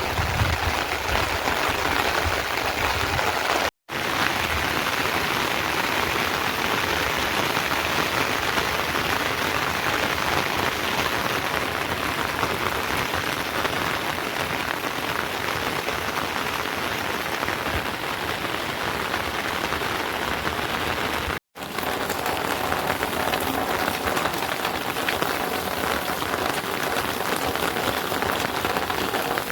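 Steady rain falling, a dense even hiss, cutting out to silence for an instant twice, about 4 and 21 seconds in.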